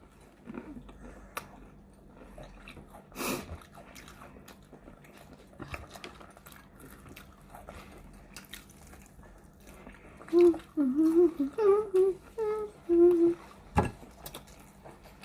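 Faint chewing and small clicks of people eating fried chicken wings. About ten seconds in, a person's voice hums for roughly three seconds without words.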